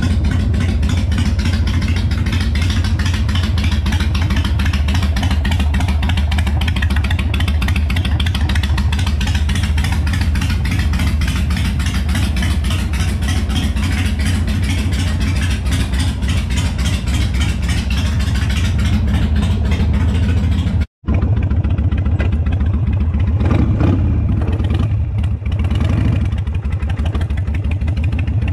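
Harley-Davidson Sportster's air-cooled V-twin running steadily with an even, rhythmic exhaust beat. After a sudden break about 21 seconds in, the engine is heard under way on the road, its note rising and falling.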